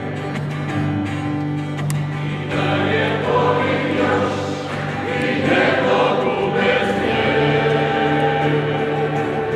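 A large choir of many voices singing, holding long sustained notes.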